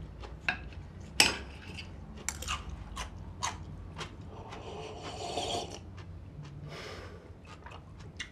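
Cutlery clinking and scraping on plates at a meal: a dozen or so sharp, irregular clinks, with a longer scrape in the middle, over a low steady room hum.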